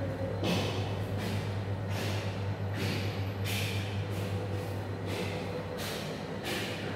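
Footsteps scuffing on a tiled floor, about one every three-quarters of a second, over a steady low hum.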